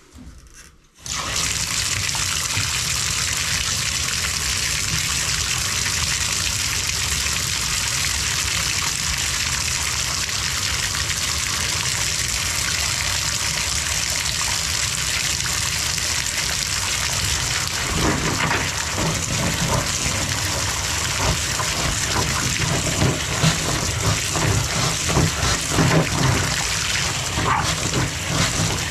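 Bathtub faucet turned on about a second in and running full, a steady gush of water. From about 18 s the water sound turns uneven and splashy.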